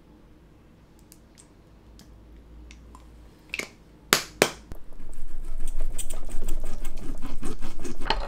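A knife and fork cutting a roast pork shoulder rack on a hard serving board: a few sharp clicks, then from about five seconds in a fast, busy run of clicking and scraping as the knife saws through the meat against the board.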